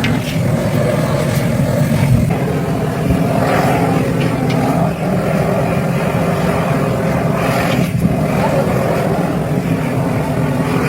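A motor or engine running steadily with a continuous low drone.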